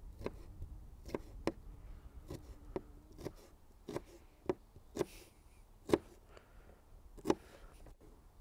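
Chef's knife chopping garlic cloves on a plastic cutting board: a dozen or so sharp knocks at an uneven pace, the loudest about six seconds in.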